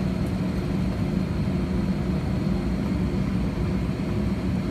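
Steady cabin drone of an Airbus A320 on the ground with its jet engines running, heard from a window seat: an even low hum with a faint steady high whine above it.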